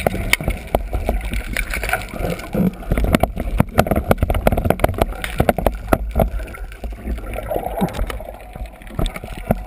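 Muffled underwater noise picked up through a camera housing on a speargun: water rushing and bubbling over a low rumble, with many sharp irregular clicks and knocks.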